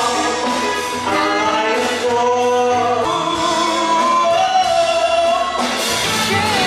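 Live band playing a song with a singer: a sung melody with long held notes over the band.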